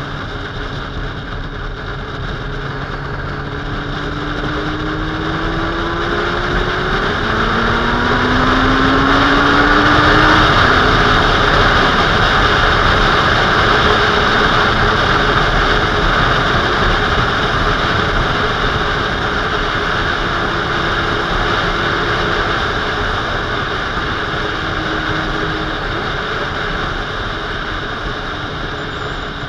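Motorcycle riding at speed on an open road, heard from the bike itself: the engine note rises twice in the first ten seconds as it accelerates, under a heavy rush of wind that builds to its loudest about ten seconds in and then eases.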